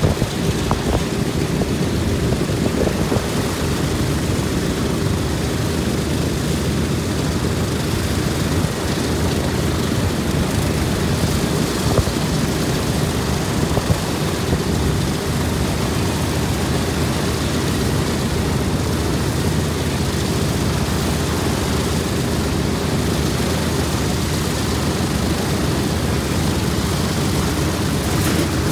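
A B-17's Wright R-1820 Cyclone nine-cylinder radial engines idling on the ground with a steady, even drone and propeller thrum.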